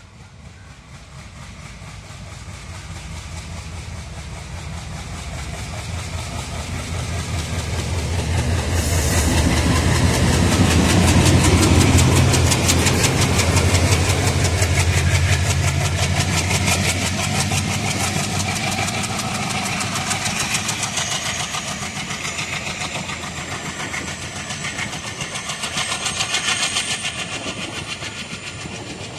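Twin ALCO WDG-3A diesel locomotives hauling a passenger train past. The engines' low throb grows louder to a peak about ten to fourteen seconds in. The passing coaches follow with a steady rhythmic clatter of wheels over the rail joints.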